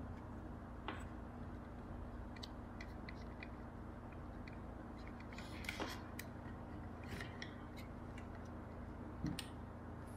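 Scattered light clicks and taps of a Sony ICF-C212 clock radio's circuit board and plastic dial wheel being handled and fitted back into its plastic case, over a steady low hum.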